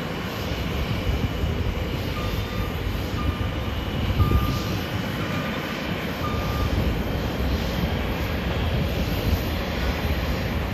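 Jet airliner engines heard as a steady, low-heavy rushing noise. In the middle comes a row of about five short beeps, roughly one a second.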